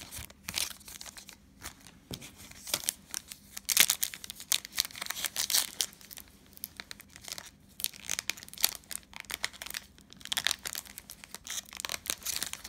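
Foil trading-card pack wrapper being torn open and crinkled by hand: a run of sharp crackles, busiest about four to six seconds in.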